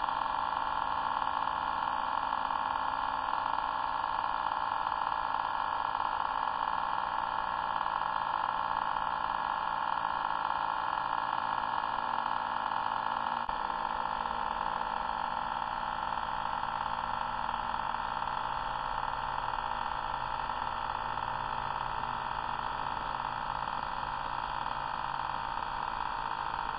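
Cordless T-blade hair trimmer running: a steady buzz from its small motor and oscillating blade, shifting slightly in tone about halfway through.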